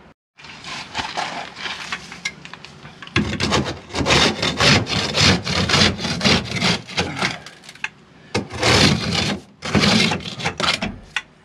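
A long-handled scraper scraping barnacles and marine growth off a fiberglass boat hull, in rapid short strokes. The scraping gets louder about three seconds in, with brief pauses near the end.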